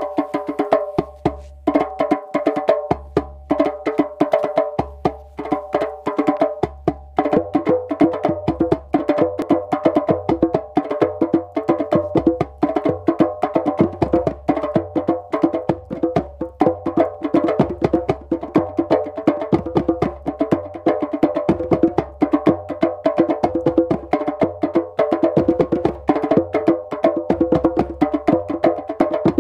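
Fast percussion music: a dense, even stream of sharp wooden-sounding strokes with ringing pitched tones, over a low bass note that changes every second or so.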